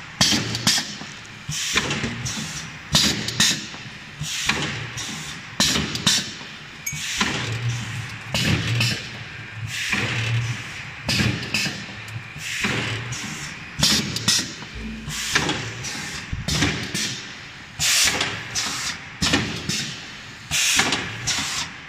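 Servo-driven single-lane sauce stick-pack machine running: its sealing and cutting jaws clack in a repeating cycle, with bursts of air hiss from the pneumatic cylinders, roughly one cycle a second.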